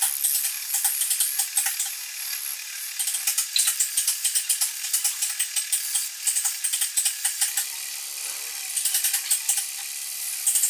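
A hand tool scraping wood in quick, short, repeated strokes, several a second, a rasping, ratchet-like sound.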